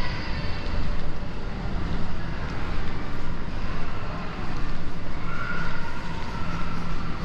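Steady low rumbling noise, with a faint held tone appearing near the end.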